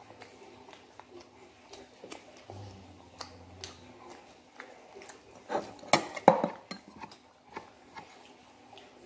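Table-eating sounds: chewing and scattered small clicks and knocks of hands and fried chicken against plastic bowls, with a louder clatter of the bowls about six seconds in.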